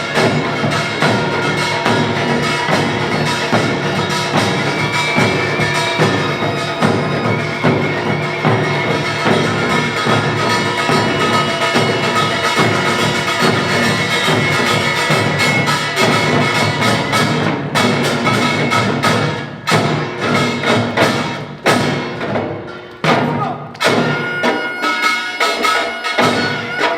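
Korean pungmul percussion band playing a fast, dense rhythm of struck drums and gongs. In the last third it breaks into sharper accented strokes with brief gaps.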